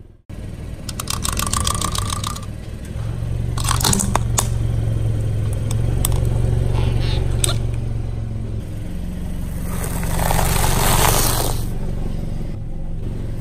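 Car engine running with a steady low hum while a tyre rolls slowly on gritty concrete. Scattered crackles and clicks come in the first few seconds, and a swell of rushing noise comes about ten seconds in.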